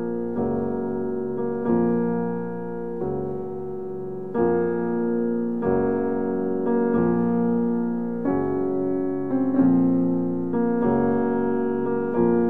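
Background piano music: slow, sustained chords, a new one struck about every second and a quarter.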